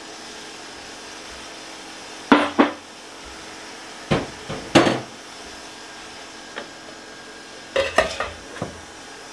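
Kitchenware clinking: a white ladle and ceramic bowl knocking against a stainless steel stew pot, and the pot's lid being set back on. Four or five short separate clinks, over a low steady hum.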